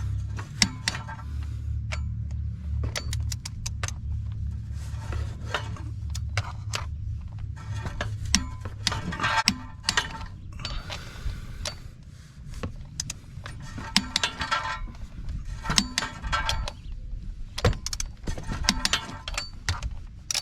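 Metal hand tools and steel parts clinking, with short runs of rapid clicking like a hand ratchet, as bolts are worked on a flywheel and clutch. A low steady hum sits underneath for the first several seconds.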